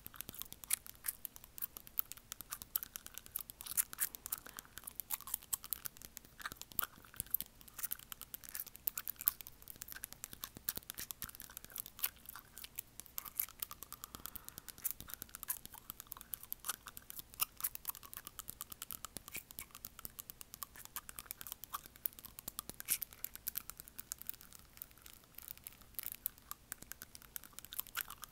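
Acrylic fingernails tapping and scraping on front teeth, a fast, irregular run of sharp little clicks, picked up right at the mouth by an earphone microphone.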